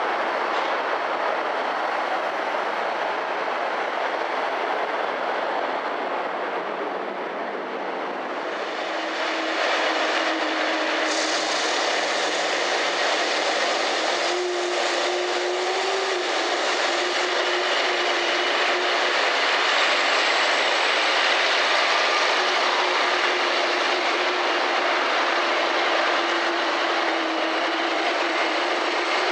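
Jet airliner engines running on the apron: a steady rushing noise with a faint whine. It grows louder and brighter about nine to eleven seconds in.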